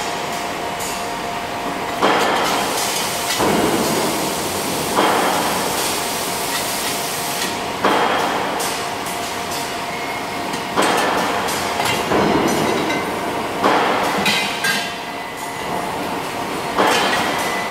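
Robotic MIG arc welding on a car body frame member: a series of short welds, each starting abruptly with a noisy hiss that fades over a second or so, about eight in a row at 1.5 to 3 second gaps, over a steady machine hum.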